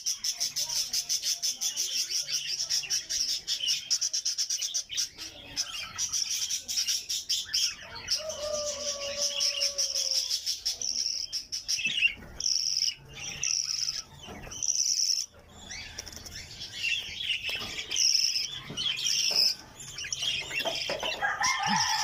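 Budgerigars chattering and chirping without pause, a dense high warble. A lower-pitched call comes in near the end.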